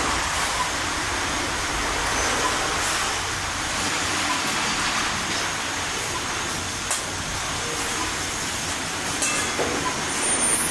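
Street-food kitchen ambience: a steady hissing rush with a few light clinks of metal pots and utensils.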